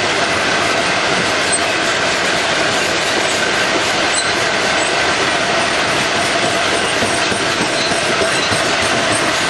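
Train of MGR coal hopper wagons rolling past on the track: a steady, loud rumble and rattle of wheels on rail, with a continuous wheel squeal.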